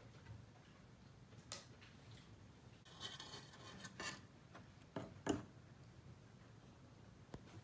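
Metal spatula clinking and scraping against a stainless steel frying pan while scooping sticky caramelized hot dog pieces: a few scattered clinks and a short scrape, the loudest clink about five seconds in.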